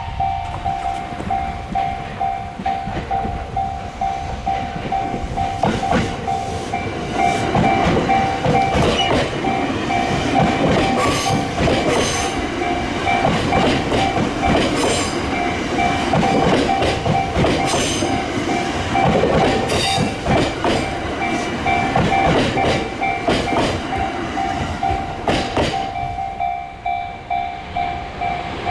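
A Japanese railroad crossing's warning bell ringing in a quick, even, repeating two-tone pattern while a train passes over the crossing, its wheels clattering over the rail joints. Near the end the train noise drops away and the bell keeps ringing.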